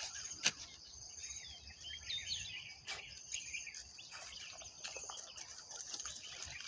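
Birds chirping over a steady high background hiss, with a few sharp clicks and the soft scuffs of walking on a dirt path.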